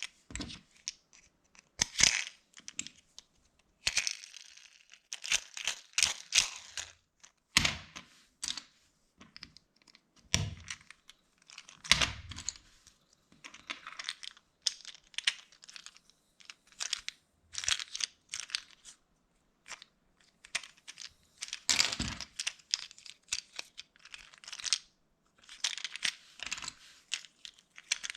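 Plastic LEGO pieces being handled and pressed together: irregular bursts of short sharp clicks and rustling, with brief pauses between them.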